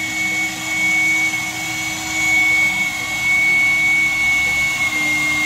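Aircraft auxiliary power unit (APU) running, heard from inside its tail compartment: a loud, steady turbine whine, with a high tone over a lower hum and rushing air.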